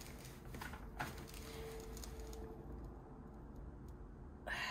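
Faint rustling and light ticks of a diamond painting canvas and its protective sheet being handled on a table, with a short louder rustle near the end.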